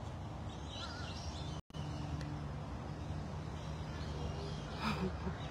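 Steady outdoor background noise with a low hum and faint bird chirps. The sound drops out completely for a split second about one and a half seconds in, and there is a brief louder sound near the end.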